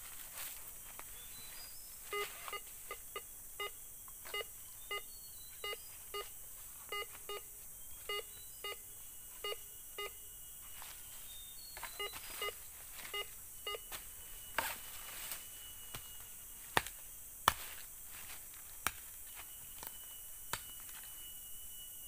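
Metal detector beeping as its coil is swept over the ground: a run of short electronic beeps, about two a second, signalling a metal target under the coil, stopping a little past halfway. A few sharp knocks follow in the second half.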